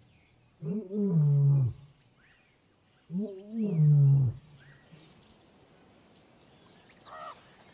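A lion roaring twice, about two and a half seconds apart, each a deep call of about a second that falls in pitch. Faint bird chirps sound behind.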